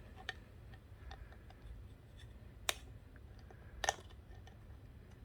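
Small clicks and taps of a 3D-printed plastic camera battery grip and its parts being handled, with two sharper clicks about two and a half and about four seconds in, over a low steady hum.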